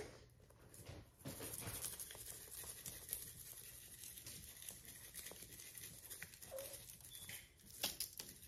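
Faint pattering and rustling of dry seasoning being shaken onto raw ribs, with a few small clicks.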